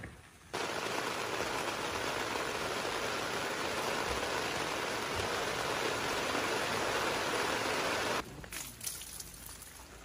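Rain falling on tent fabric overhead, heard from inside the tent: a steady, even rush that starts abruptly about half a second in and cuts off suddenly near the end.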